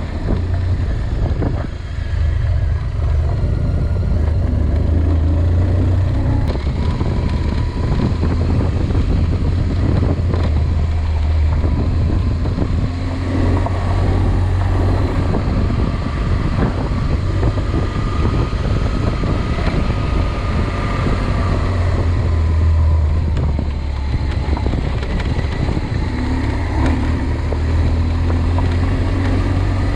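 Vehicle engine running steadily, a deep continuous hum, with frequent small knocks and rattles over it.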